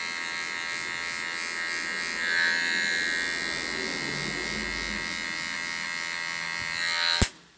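M-PRO electric hair clipper running with a steady buzz while its blade is worked up through a fade on the side of the head. Near the end the buzz cuts off abruptly with a click.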